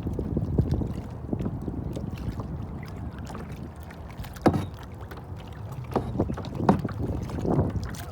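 Kayak paddling: paddle strokes splashing in the water, with a few sharp knocks, the loudest about four and a half seconds in, over a low rumble.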